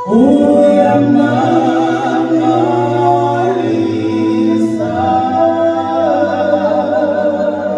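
A small mixed vocal group, three women and a man on microphones, singing a gospel song a cappella in close harmony. They hold long notes and change chords a few times.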